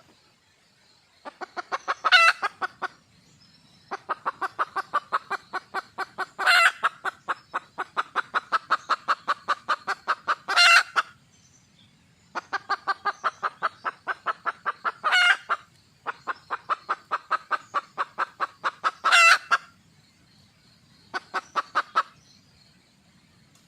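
Red junglefowl hen calling for a cock: runs of rapid clucks at about six a second, several seconds long, each marked by a louder, higher squawk. Five such runs come with short pauses between them.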